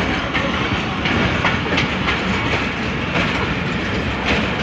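Passenger train coaches rolling slowly past, a steady rumble with irregular clacks from the wheels.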